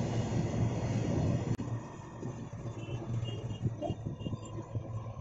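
Freight train of open-top wagons rolling past: a steady rumble of steel wheels on rail with irregular knocks as the wheels cross rail joints. The sound drops suddenly quieter about a second and a half in.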